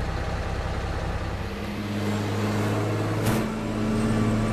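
Tractor engine running steadily, its tone changing about one and a half seconds in, with one short click just past three seconds.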